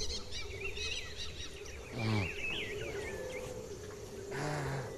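Rainforest birds calling over a river, many overlapping chirps and whistles, over a steady hum. Two short, louder gusts of noise, about two seconds in and again near the end.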